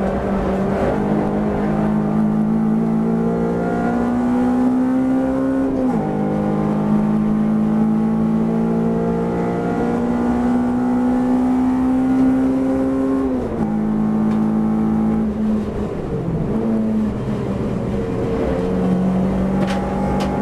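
Honda Civic race car's engine heard from inside the cabin under hard acceleration: the pitch climbs, drops sharply at a gear change about six seconds in, and climbs again. About thirteen seconds in it drops back and falls off further as the car slows, then picks up again near the end.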